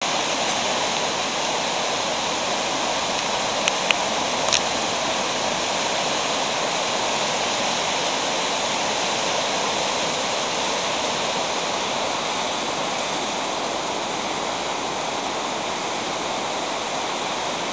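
The Moselle river in heavy flood, its fast water rushing over rapids in a steady, loud roar. A few short clicks sound around four seconds in.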